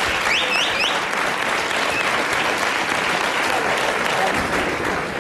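Studio audience applauding steadily, dying away at the end.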